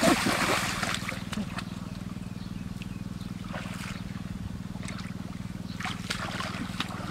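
A few brief splashes of water over a steady low hum.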